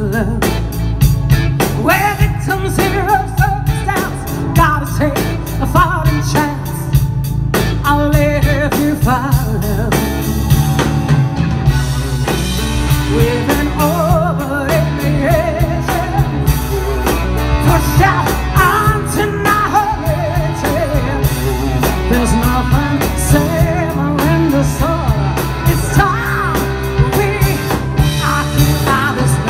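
Live blues-rock band playing through a PA: a woman singing lead over electric guitar, drum kit and keyboards.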